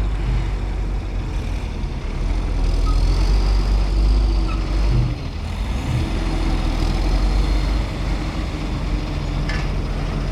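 Heavy diesel engine running under load, its pitch sagging about five seconds in and picking back up a second later.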